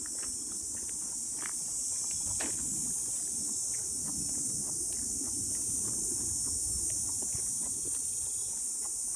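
A steady, high-pitched insect chorus buzzing without a break, with footsteps on a dirt trail faintly underneath.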